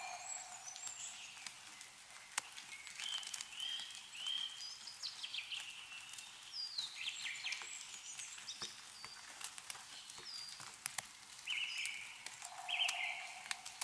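Songbirds calling with many short, repeated chirps and a lower call near the end, over scattered sharp ticks of meltwater dripping from snow-laden trees.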